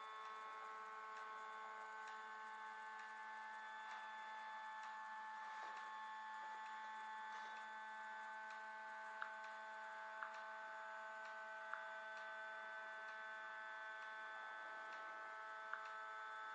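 Stepper motors of a Lowrider 3 CNC driving the gantry along the table in a demo move, with no cutting: a faint, steady whine of several tones. The pitch shifts about halfway through, and a few light clicks come in the second half.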